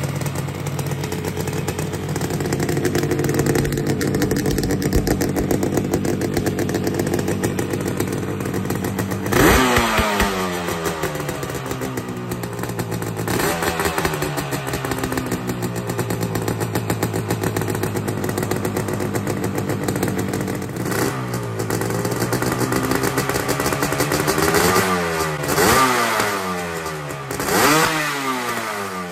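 Yamaha RD350's two-stroke twin idling through its original expansion chambers, then given several quick throttle blips from about nine seconds in, each revving up sharply and falling back to idle. Both cylinders are firing.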